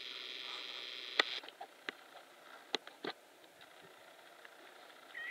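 A few sharp, separate ticks and light clicks close to the microphone, over a faint hiss that fades after the first second and a half.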